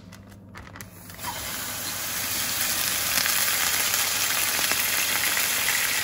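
Marinated chicken pieces in their soy-sauce and rice-vinegar marinade hitting a hot oiled skillet: a sizzle breaks out about a second in, builds quickly, and holds as a loud, steady sizzle.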